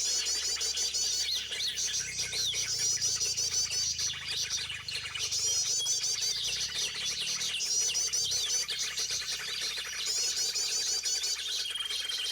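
Small birds calling together: clusters of rapid repeated high chirps come in bursts, mixed with quick sweeping whistled notes, and one brief steady whistle near the end.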